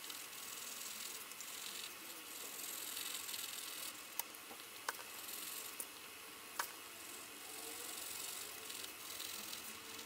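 Graphite pencil scratching across paper in shading strokes. Four sharp clicks come in the middle.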